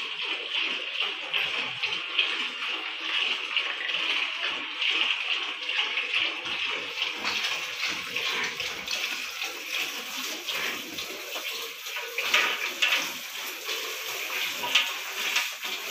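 Buffalo being milked by hand: streams of milk squirting into a metal pail with a steady hiss that swells and fades in rhythm with the hand strokes.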